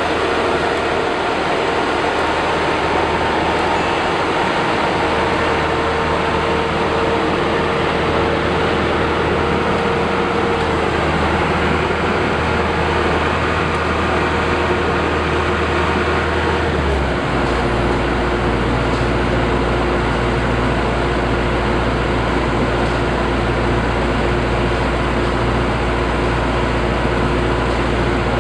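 Combine harvester running steadily: engine drone with whining threshing machinery. About halfway through, the engine's low note drops and then holds steady.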